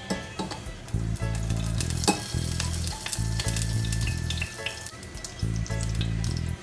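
Whole spices, a bay leaf among them, sizzling in a small saucepan over a gas flame, with scattered crackling pops. Background music with a steady bass line plays under it.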